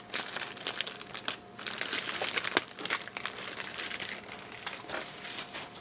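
Clear plastic packaging bags crinkling as bagged liquid-cooler parts are handled and lifted out of the box. A quick, dense run of crackles that thins out over the last couple of seconds.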